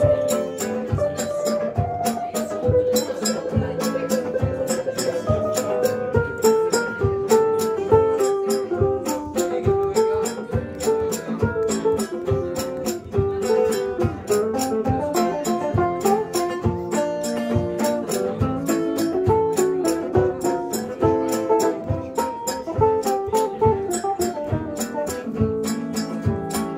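Live acoustic band playing an instrumental passage: strummed acoustic guitars and a melodic lead line over a steady low beat.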